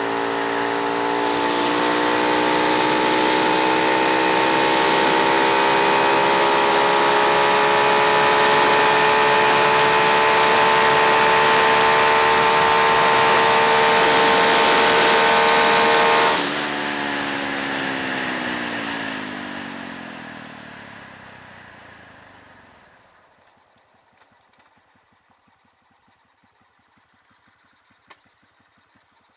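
Modified Honda MSX125 single-cylinder four-stroke engine (open intake, 31 mm throttle body, hotter camshaft) held at full throttle, its pitch creeping slowly upward as the bike nears about 115 km/h, with heavy wind rush on the microphone. About sixteen seconds in, the throttle closes and the engine note falls away as the bike slows, fading to a faint background by about 23 seconds.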